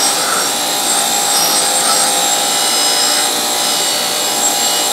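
Wire wheel on an old Craftsman bench grinder scrubbing rust off a rusted steel tube that is pressed hard against it. The harsh scrubbing is steady and continuous, with a thin high whine.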